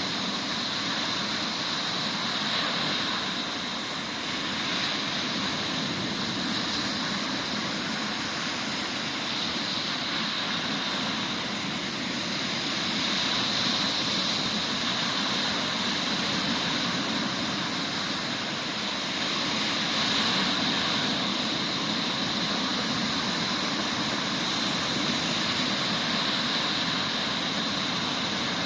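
Sea waves breaking on a beach: a steady wash of surf that swells a little louder every several seconds.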